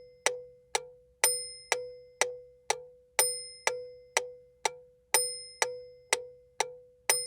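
Metronome sound effect clicking at about two beats a second in a steady four-beat pattern. Every fourth beat is an accented click with a brighter, ringing top.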